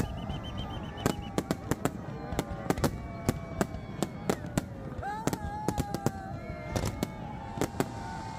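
Aerial fireworks display: shells bursting in irregular cracks and bangs, several a second, over a steady rumble.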